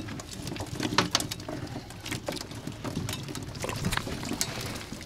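Irregular light taps and knocks of small sardines being picked up by hand off the wet floor of an inflatable boat.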